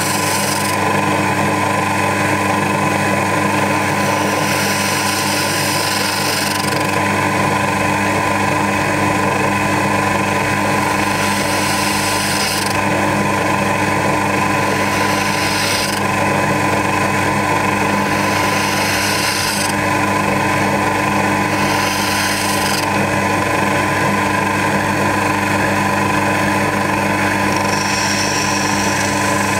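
Small benchtop metal lathe running steadily, spinning a BMW M50B25 engine valve while a screwdriver blade scrapes the carbon deposits off the valve head. The scraping hiss comes and goes in bouts of a few seconds over the lathe's constant motor hum.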